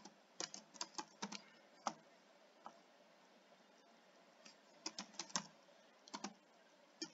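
Faint computer keyboard typing: sharp keystrokes in short bursts with pauses between them, as a password is entered.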